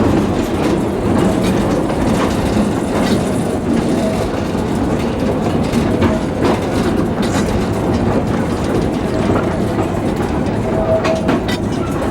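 Ride train hauled by a small 0-4-0 locomotive rolling steadily along its track loop. The wheels clickety-clack over the rail joints under a continuous rumble, with a faint thin squeal now and then.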